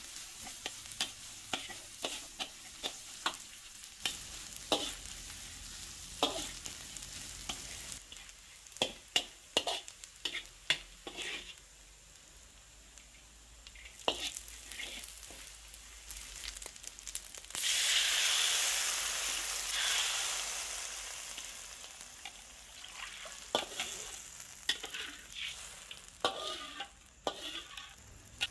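Chopped shallots, garlic, dried anchovies and dried shrimp sizzling in oil in a wok while a metal spatula scrapes and taps against the pan. About 17 seconds in a louder sizzle starts suddenly and fades away over several seconds.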